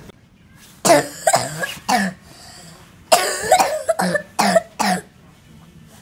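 A young child's bad cough: two bouts of hard coughing, three coughs about a second in and four more from about three seconds in.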